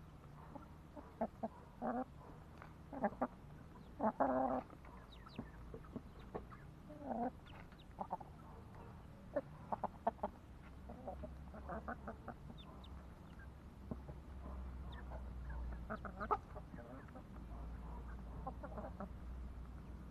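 Chickens clucking while feeding: short, scattered clucks and calls, the loudest in the first half.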